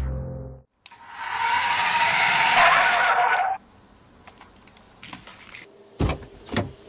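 Toy RC monster truck's small electric motor whirring for about two and a half seconds, a steady hiss with a whine that drops in pitch near the end before it cuts off. A couple of sharp clicks follow near the end, after the fading tail of music at the very start.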